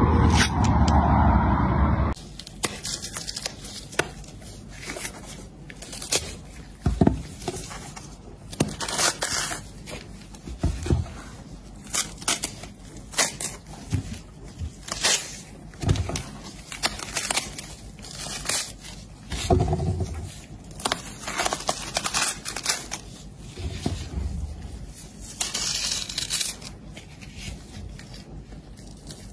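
Ripe watermelon flesh and rind being pulled apart by hand: a run of short, wet crackling tears at irregular intervals. A louder stretch fills the first two seconds, before the tearing starts.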